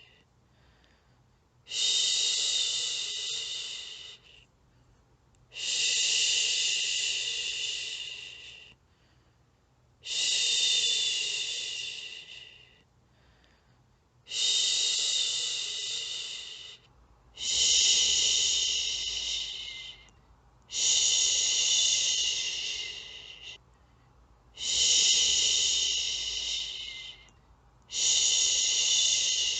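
A person's long 'shhh' shushing, repeated about every three to four seconds, eight times. Each shush starts sharply and fades off before the next.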